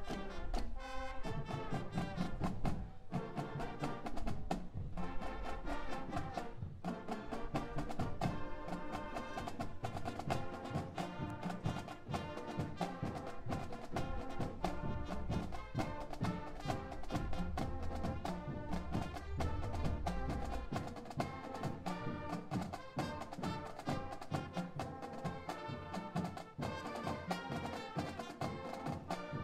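High school marching band playing a pop arrangement: saxophones, clarinets, brass and sousaphones over a steady drum beat.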